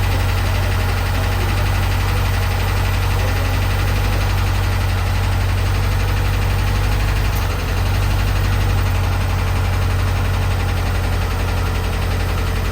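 A 912 engine idling steadily, with a brief dip about seven and a half seconds in. Its owner is unsure whether this sound is normal or a sign of trouble.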